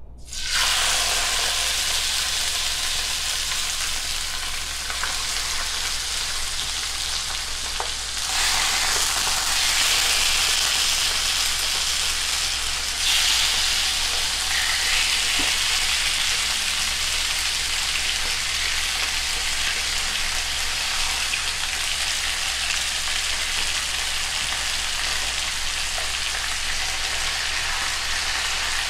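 Skinless chicken thighs sizzling as they are laid piece by piece into hot olive oil in a skillet. The sizzle starts suddenly as the first piece hits the oil and grows louder about eight seconds in and again a few seconds later as more pieces go in.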